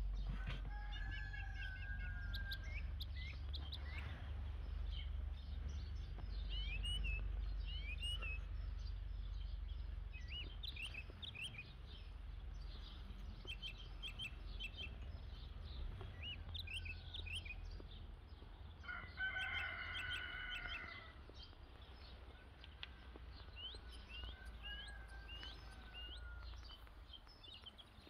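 A rooster crowing, faintly about a second in and louder for about two seconds some nineteen seconds in, over continual small-bird chirping and a low rumble.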